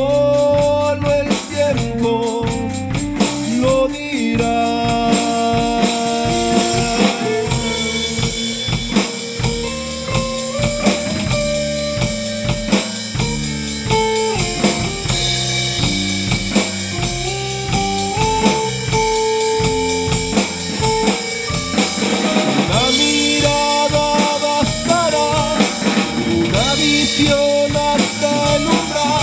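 Rock band playing live: drum kit with rimshots keeping a steady beat under electric guitar lines.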